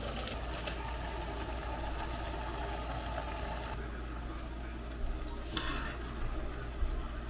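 Pot of instant ramen boiling on the stove: a steady bubbling hiss with a low hum under it. A brief louder rustle comes about five and a half seconds in.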